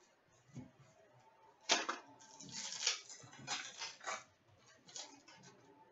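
Trading cards and foil card packs being handled: a sharp crackle about two seconds in, then several short bursts of crinkling and clicking.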